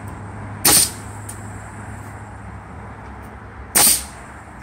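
Pneumatic framing nailer firing twice, about three seconds apart, driving 3-inch nails into a doubled Microlam laminated veneer lumber beam. Each shot is a sharp bang.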